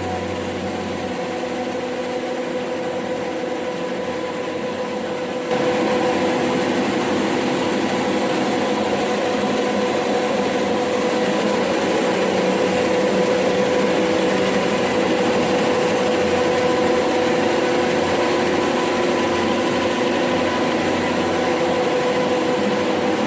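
Steady machine drone with a few held tones, stepping up abruptly in level about five and a half seconds in and then holding steady.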